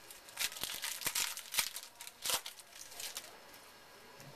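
Crackly crinkling and tearing of a trading-card pack wrapper being opened by hand, a run of rustles from about half a second in to about three seconds in, with two sharper tears near the middle.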